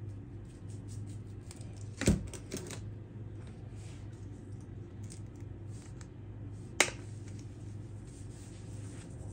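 Plastic spice shaker of onion powder shaken over raw meat: a run of light, irregular rattling ticks, with two sharper clicks about two seconds in and near seven seconds, over a steady low hum.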